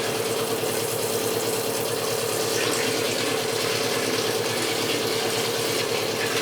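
Water pouring steadily and without a break from a toilet that has been tampered with and won't stop running, with a steady tone underneath.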